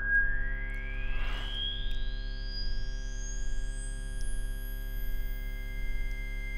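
Electronic film score: a synthesizer drone of many held tones over a low hum, swelling and fading about once a second, while a single pure tone glides steadily upward until it rises out of hearing. A faint brief hiss passes just over a second in.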